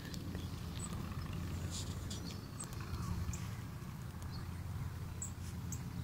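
A steady low rumble on a handheld microphone outdoors, with faint, short high-pitched chirps and clicks scattered through it.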